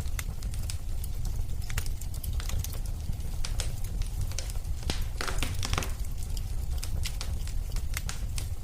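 Wood fire crackling in a fireplace: a steady low rumble of burning with irregular sharp pops and snaps, and a quick flurry of crackles about five seconds in.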